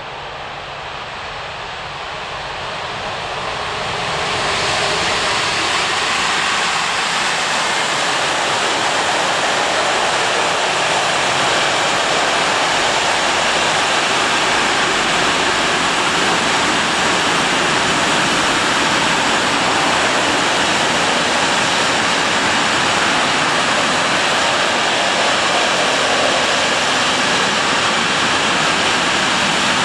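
Electric-hauled container freight train passing close by: the rolling noise grows over the first four seconds or so as it draws near, then holds as a steady loud rush of steel wheels on rail while the container wagons go by.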